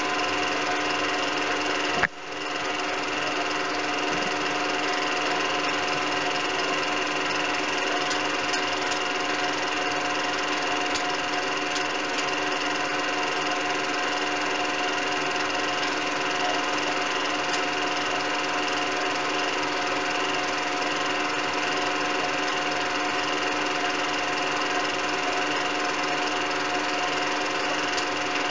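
Home-movie film projector running with a steady mechanical whir and clatter. A single sharp click about two seconds in.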